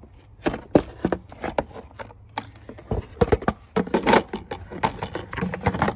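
Hand work on the plastic air-intake parts in a car's engine bay: a screwdriver loosening a clamp and the air box and intake tube being pried and moved, giving an irregular run of sharp clicks, knocks and scrapes.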